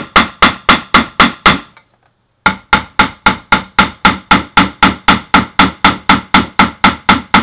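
Small peening hammer tapping the end of a solid copper rivet set through leather, in quick even taps about four a second with a short break about two seconds in. The rivet is being peened to flatten it down.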